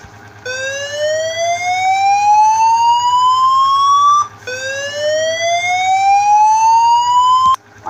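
Fire alarm going off: a loud siren tone that rises steadily in pitch over about three and a half seconds, breaks off, and rises again once more.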